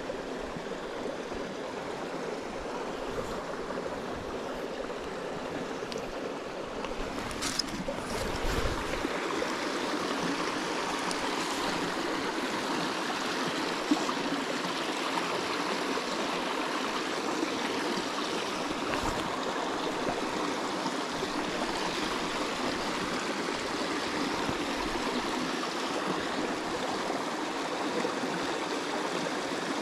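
Small rocky mountain creek flowing over stones: a steady rush of water, a little louder from about eight seconds in, with a couple of brief knocks.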